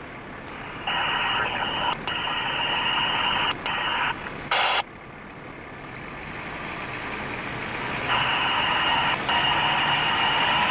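Two-way radio transmissions: bursts of narrow-band radio hiss from about a second in to about four seconds, and again from about eight seconds in, each broken by short gaps, with a short squelch burst between them. A fire engine runs underneath and grows louder toward the end.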